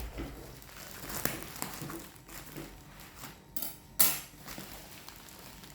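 A drone's retail box and packaging being handled and opened: scattered small clicks and knocks, a short scraping rustle about three and a half seconds in, then a sharp snap just after.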